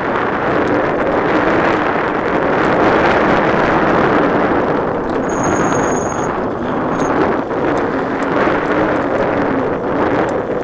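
Steady rush of wind over the camera's microphone, mixed with the rolling noise of mountain-bike tyres on a gravel path while riding.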